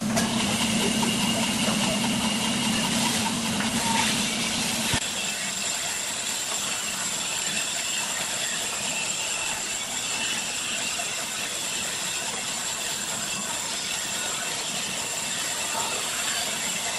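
Band saw running and cutting around the rim of a round panel of pallet boards: a steady hiss of cutting with a high thin whine. For the first five seconds a lower machine hum runs under it.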